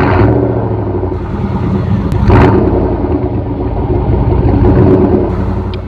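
Chevy Silverado pickup engine revving loudly through its exhaust, with throttle rises near the start and again about two seconds in, then holding at a high rumble before cutting off suddenly near the end.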